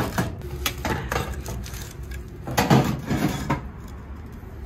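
Knocks and rattles of large square metal storage tins and their lids as griddle-cooked pancakes are packed into them. A quick run of knocks about two and a half seconds in is the loudest.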